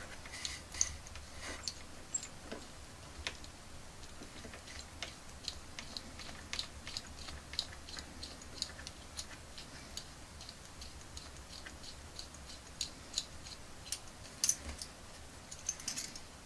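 Pin vise turned by hand, its small twist drill bit boring into a red plastic toy figure's leg: faint, irregular ticks and scrapes, about two a second, with a few louder ones near the end.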